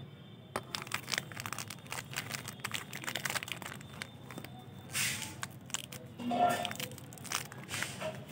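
Plastic biscuit-packet wrappers crinkling and rustling as the packs are picked up and handled, a run of sharp crackles with a few denser bursts. A brief pitched sound a little past six seconds in is the loudest moment.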